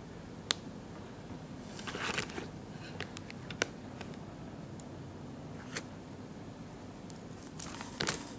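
Scattered light clicks and taps, with two short rustling scrapes, one about two seconds in and one near the end, from hands handling self-drying clay and small craft items on a desk, over a low steady room hum.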